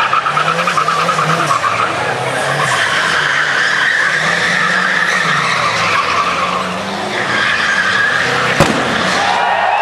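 Two Chevrolet Chevettes drifting, their engines revving hard while the tyres squeal continuously. A single sharp crack about three-quarters of the way through stands out above the squeal.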